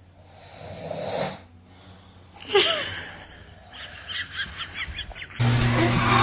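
A snore, then a sharp falling vocal sound and a quick run of short high squeaks from a baby. Music cuts in suddenly near the end.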